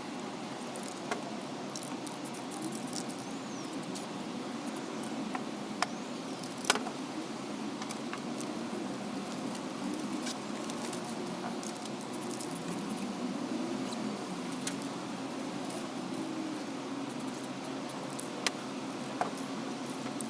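A steady low machine hum that wavers slightly in pitch, with scattered sharp metallic clicks and taps.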